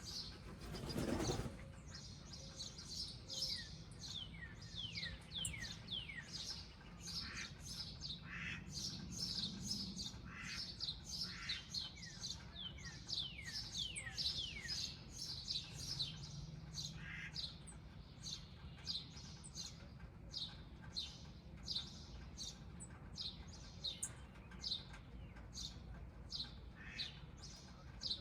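Small birds chirping continuously, many short high chirps mixed with quick downward-sliding whistles. About a second in there is a brief, louder rustling noise.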